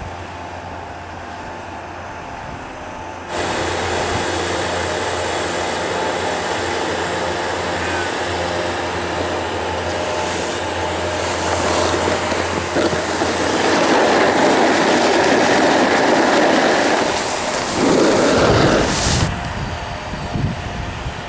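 Skis sliding and scraping on groomed snow during a run down a ski trail, a steady rushing noise that jumps up about three seconds in and grows louder in the second half.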